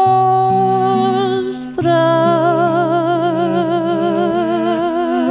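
A slow song sung in Galician: the singer holds one long note, then from about two seconds in a second long note with a wide vibrato. Sustained low notes accompany the voice.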